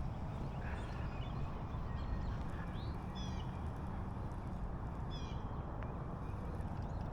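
Steady open-air background hiss with a few short, high bird chirps, in quick little runs about three seconds in and again about five seconds in.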